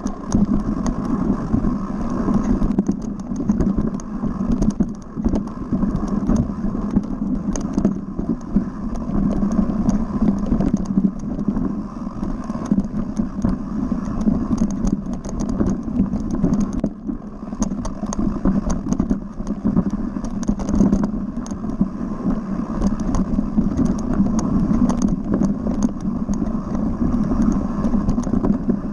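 Mountain bike ridden fast down a dirt forest trail: a steady rush of wind and tyre noise, broken all through by frequent clicks and rattles as the bike clatters over bumps.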